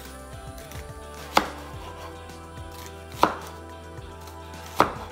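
Three sharp knife chops on a cutting board, each about one and a half seconds apart, cutting through a red onion. Faint background music plays underneath.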